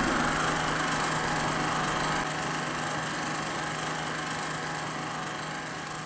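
A steady, machine-like droning hum under a wash of hiss, slowly fading out: the closing texture of the film's composed score.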